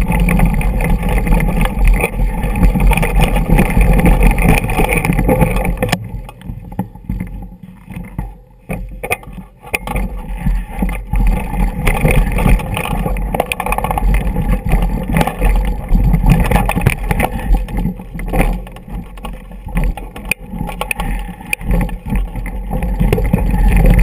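Wind buffeting an action camera's microphone together with the rattle and jolting of a mountain bike rolling down a rocky dirt track. The noise drops off for a few seconds about six seconds in, then comes back.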